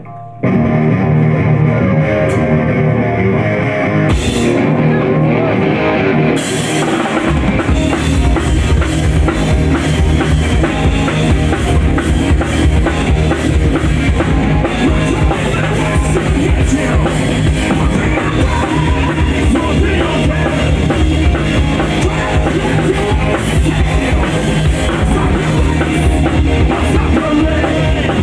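Live rock band starting a song: electric guitar alone for the first seconds, a single drum hit about four seconds in, then drums, cymbals and bass guitar join at about six to seven seconds and the full band plays on.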